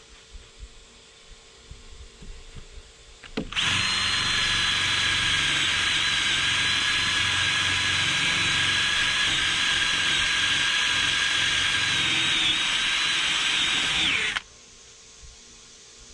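Cordless drill fitted with an abrasive bit, grinding out fiberglass in a boat hull. It runs at a steady speed with a constant high whine from about three and a half seconds in, after some faint clicks, and cuts off sharply near the end.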